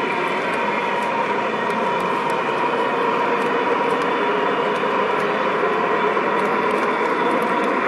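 Model train running along a track mounted under the ceiling: a steady whirring with a held motor tone, and light irregular clicks of the wheels on the rails.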